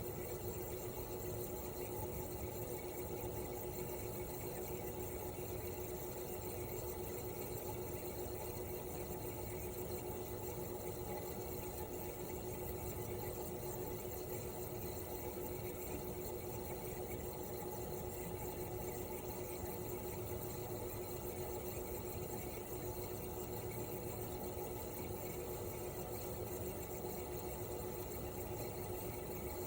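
Toshiba RAS-285BAD mini-split outdoor unit running in cooling mode: its twin rotary compressor hums steadily with a constant tone, under the even whir of the propeller fan.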